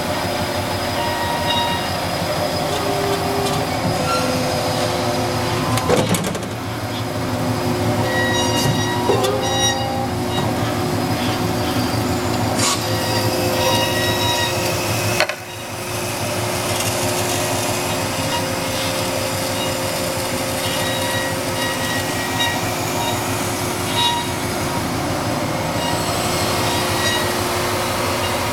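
Amada HFA400W horizontal band saw running, its blade cutting metal with a steady mechanical noise and several high ringing tones that shift in pitch. A sharp click about 6 seconds in and a brief dip in the sound about 15 seconds in.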